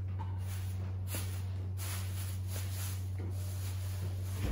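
A steady low electrical-sounding hum, unchanging throughout, with a few faint soft rustles over it.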